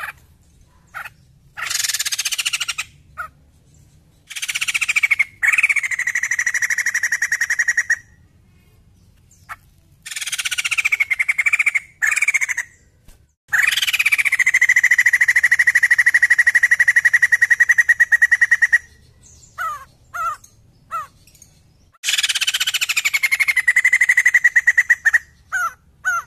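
White-crested laughingthrush calling loudly in bouts. Each bout opens with a falling note and runs into a fast, rattling pulsed note held at one pitch. The longest bout, about halfway through, lasts some five seconds, and a few short chips follow it.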